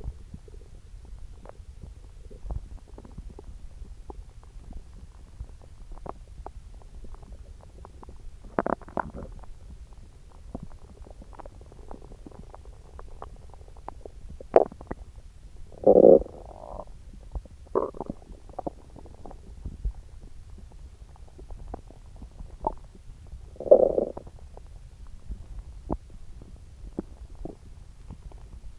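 Upset stomach growling and gurgling: a run of short gurgles and pops, with louder gurgles a little past halfway and again near the end, over a low steady hum.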